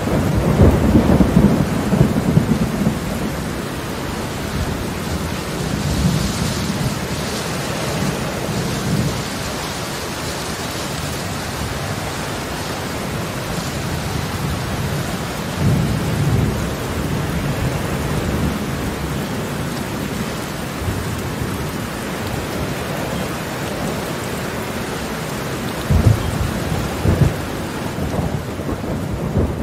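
Heavy rain pouring steadily. Low rumbles swell and fade several times: near the start, about halfway through, and near the end.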